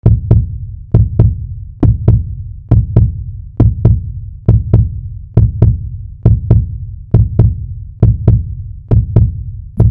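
Deep heartbeat-like sound effect: a double thump, lub-dub, repeating steadily a little faster than once a second.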